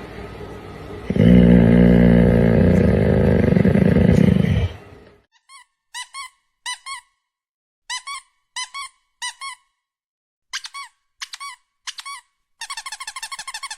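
Loud low droning sound lasting about three and a half seconds, then a dog's squeaky toy squeaking in short pairs and triplets, ending in a fast run of squeaks.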